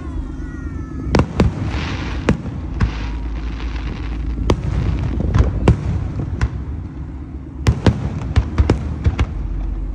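Aerial fireworks shells bursting overhead: more than a dozen sharp bangs in irregular succession over a steady low rumble, with a brief burst of fast crackle-like noise about two seconds in.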